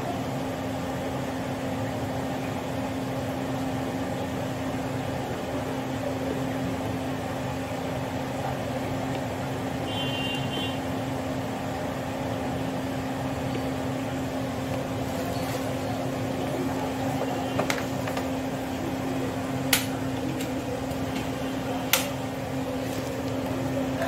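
Samsung inverter refrigerator's compressor running with a steady hum while refrigerant gas is being charged into the system. A few sharp clicks come near the end.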